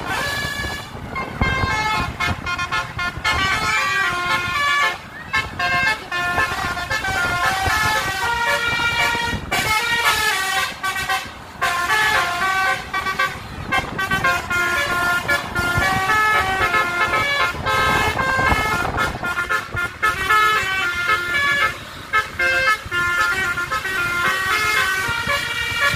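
A bus's basuri telolet horn playing a multi-note melody, its tones stepping from note to note, over engine and road noise.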